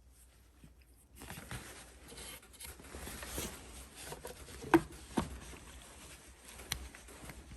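Faint handling noises: a low rustle with a few light clicks and knocks, two of them close together a little after the middle.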